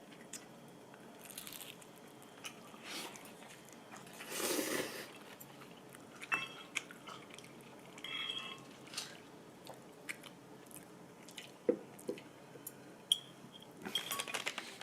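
Quiet eating sounds over a meal of bibim-myeon noodles: chewing, with scattered light clicks and brief clinks of utensils on dishes, and one louder rustling, noisy sound about four and a half seconds in.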